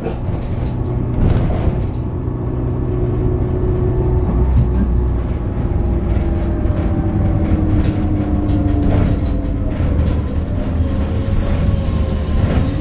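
New Flyer Xcelsior city bus under way, heard from inside the cabin: a steady low drone of engine and drivetrain with a whine that slowly drops in pitch partway through, and scattered short rattles.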